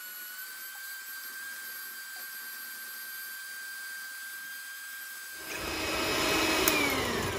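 Electric hand mixer whipping eggs and sugar into a foam in a glass bowl: a steady high motor whine. About five seconds in it turns louder and rougher, and near the end its pitch drops as the motor winds down.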